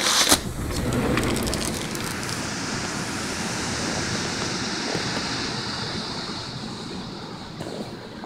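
Ocean surf breaking on the beach, with wind buffeting the microphone: a steady rushing that starts abruptly at the beginning and eases slightly near the end.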